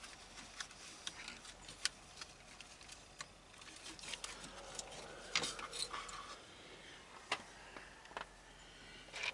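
Scattered light clicks and rattles of small parts and tools being handled, with a few sharper clicks spread through.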